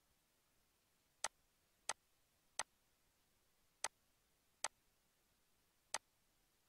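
Computer mouse button clicking six times at uneven intervals, sharp single clicks against near silence.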